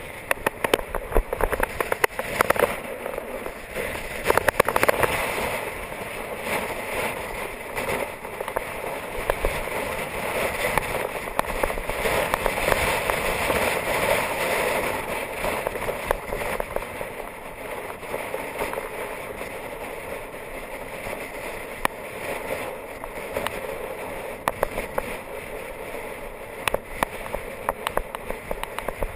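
Wind rushing and buffeting over a bicycle's handlebar-mounted camera microphone as the road bike descends a tarmac lane. The noise is steady, with frequent crackling buffets and rattles from the road, busiest at the start and near the end.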